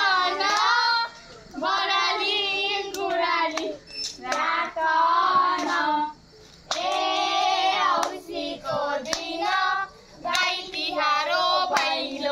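Children singing together in short phrases with brief pauses between them, with hand claps among the singing.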